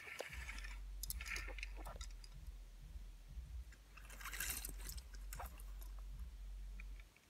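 Faint rustling and handling noise with a few small clicks, over a low steady hum, as small toy trains are moved about on a carpet and the recording phone is handled.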